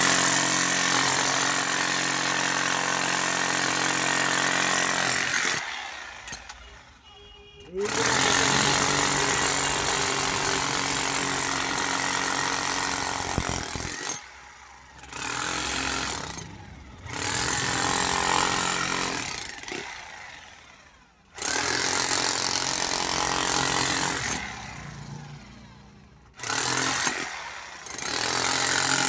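A power tool running in repeated spells of a few seconds each, with a steady high whine over a lower hum, stopping and starting again several times.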